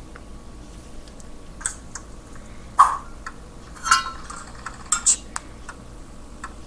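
A handful of light, irregular taps and clicks on a smartphone's touchscreen as someone types a search.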